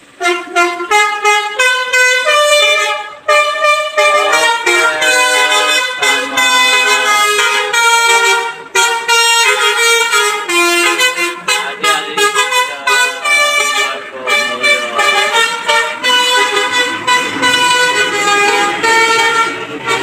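Telolet musical bus air horn, a Basuri V3 set, playing a World Cup tune as a long run of short melodic notes that change pitch every few tenths of a second with brief gaps between phrases.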